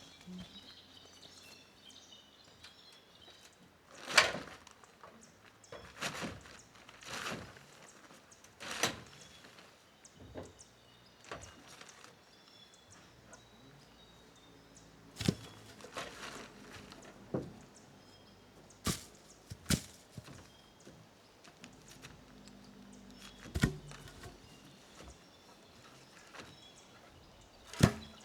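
Irregular thuds and scuffs, about ten spread over the stretch, of someone moving about and handling things on a bare plank roof, with faint bird chirps in the background.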